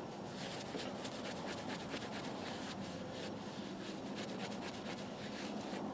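Cloth rubbing over a translucent plastic screwdriver handle, wiping and buffing it in a run of soft, quick strokes.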